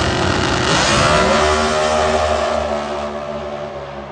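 Two Super Gas dragsters launching off the starting line at full throttle, the engine pitch climbing for a couple of seconds as they accelerate down the strip, then the sound fading as they pull away.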